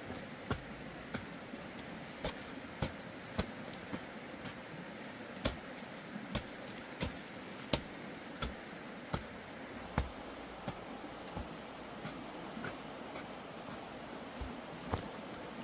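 Hand hoe chopping into loose, dry soil, one strike roughly every half second to second, each a short dull knock.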